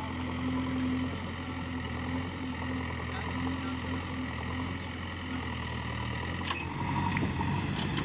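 JCB backhoe loader's diesel engine running steadily with a low hum while its backhoe arm works. A little past six seconds the machinery noise turns louder and rougher.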